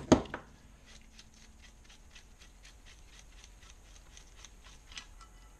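A sharp metal clack at the start as the ratchet and socket come off the 14 mm oil-feed banjo bolt on a Kawasaki KLR650 cylinder head. It is followed by faint, even ticking, about five a second, as the loosened hollow bolt is spun out by hand.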